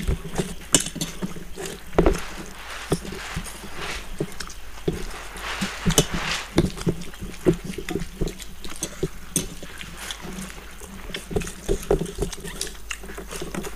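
Several people eating fish-head curry and rice by hand: wet chewing and lip smacks, with fingers squishing rice and curry on steel plates, in an irregular stream of small clicks and squelches.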